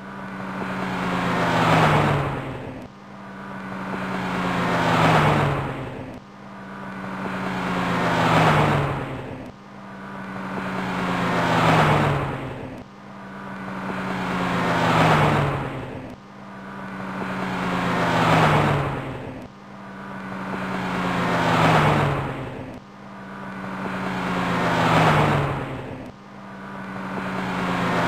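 A car driving past again and again, about every three seconds. Each pass swells to a peak, and the engine note drops in pitch as it goes by before fading. The identical repeats are a looped pass-by sound effect.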